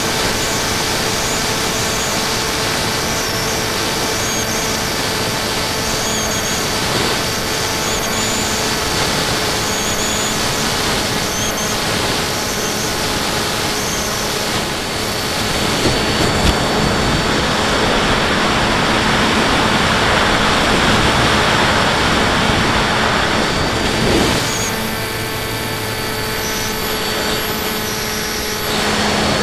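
Model airplane's motor and propeller heard from a camera on board, a steady whine with wind rushing over the microphone. Just past the middle the whine fades under louder wind noise for several seconds, then comes back near the end.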